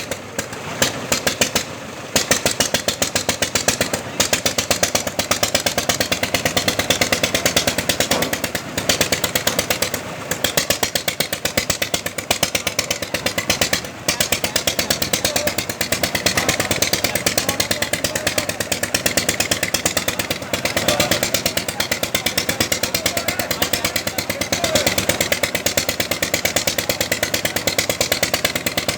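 Small engine driving a carrot washing machine, running steadily with a rapid, even knocking.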